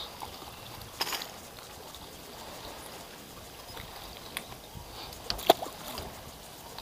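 Water lapping gently against a small boat's hull, with a few sharp clicks, the loudest about five and a half seconds in.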